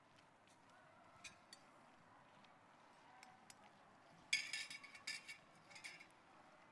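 Kitchen handling noises over faint room tone: a couple of light clicks about a second in, then a burst of sharp clicks and clinks lasting about two seconds, from hands working a dough mixture in a stainless steel bowl and handling ingredients beside it.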